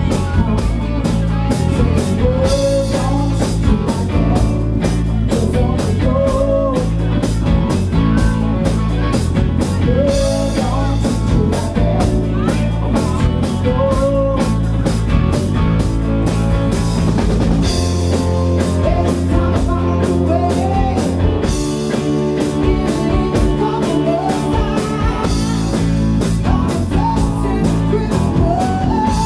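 Live rock band playing: electric guitars, bass guitar and drum kit keeping a steady beat, with a woman singing over them.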